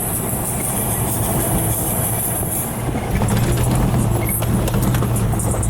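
Off-road vehicle driving on a trail: a steady engine drone with tyre and road rumble.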